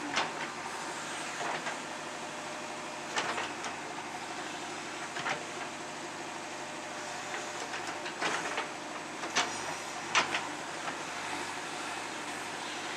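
JCB 3DX backhoe loader's diesel engine running steadily under work, with a handful of sharp metallic clanks at irregular intervals, the loudest about ten seconds in.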